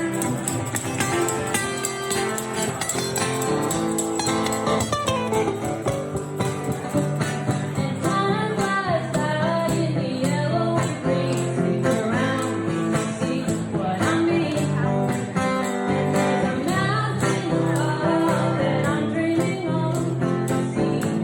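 Small live band playing a song: strummed guitar and a shaken tambourine, with a voice singing the melody.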